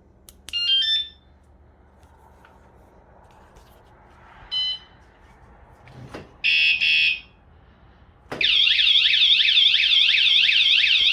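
Electronic motorcycle alarm (wsdcam 113 dB vibration-sensor unit) sounding. A short run of stepped chirp tones comes first, then a single beep and two short harsh blasts. About eight seconds in, a loud, rapidly warbling siren starts and carries on.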